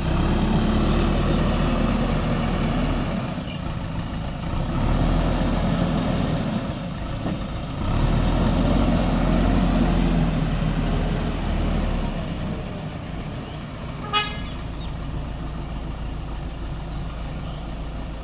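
Diesel engine of a backhoe loader at work, revving up under load three times and then settling to a quieter steady run. About two-thirds of the way through, a vehicle horn gives one short beep.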